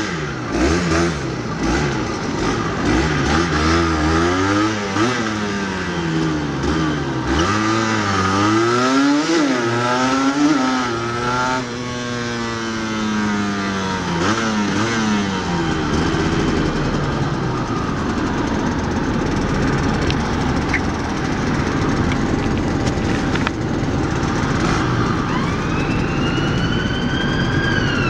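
Yamaha DT125X 125cc two-stroke single with an Arrow exhaust, revving up through the gears in a run of rising and falling notes, then a long falling note as it slows, and after that running more steadily with traffic noise. Near the end a siren starts to rise.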